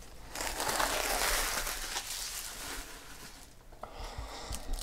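Foil wrappers of trading card packs crinkling as they are handled, a steady rustle for about three seconds, then quieter with a few light taps near the end.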